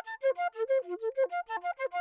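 Instrumental music: a quick melody played one note at a time, with short notes stepping up and down several times a second.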